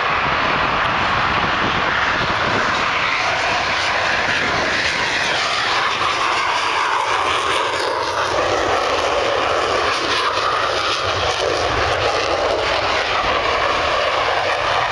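Jet aircraft engine noise, loud and steady throughout.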